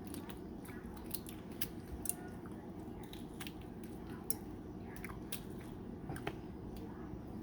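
Close-miked chewing and wet mouth clicks of someone eating balut, a boiled fertilised duck egg, over a steady low hum.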